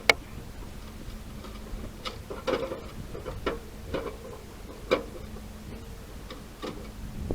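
One sharp click, then a string of irregular, lighter clicks and knocks spread over several seconds.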